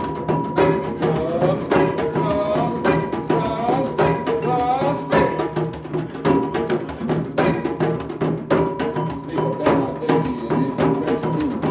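Live hand-drum ensemble music: dense, rapid drumming with a steady beat, and a sustained high tone running through it.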